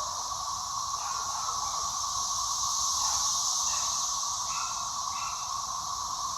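Chorus of 13-year periodical cicadas: a steady, unbroken drone, with a higher hiss above it. Short higher chirps break in a few times, about one to four seconds in.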